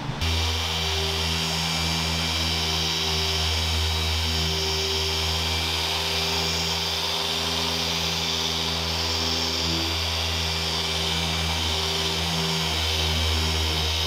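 Electric dual-action polisher running at a steady speed: an even motor hum with a hiss above it.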